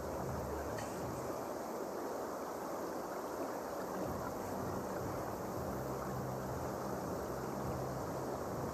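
Steady background ambience of an outdoor diving venue on a broadcast: an even rushing noise with no distinct events.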